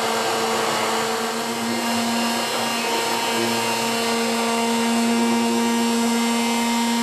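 Hand-held immersion blender running steadily in a plastic jug, blending garlic, olive oil and water into an emulsion; an even motor hum throughout.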